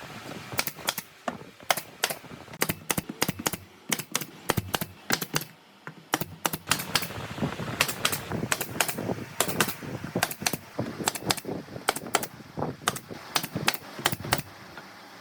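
Rapid, irregular sharp taps and clicks, several a second, typical of hand work on wood, with a short lull about five to six seconds in.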